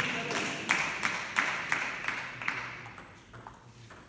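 Table tennis ball going back and forth in a fast doubles rally, sharp clicks off the rubber bats and the table about three times a second. The rally stops about two and a half seconds in, leaving only a few fainter taps.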